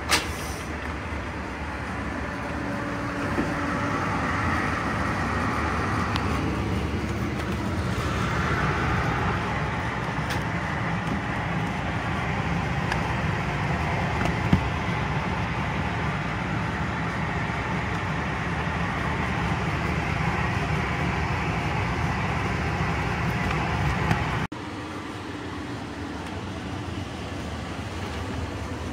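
Heat shrink tunnel running with its blower and roller conveyor, a steady low hum, after a sharp clack at the very start. The noise drops in level abruptly about three-quarters of the way through.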